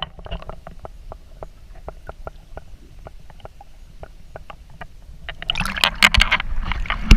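Underwater sound through a GoPro held below the surface: a muffled low rumble with many faint scattered clicks. About five seconds in come loud bursts of splashing water.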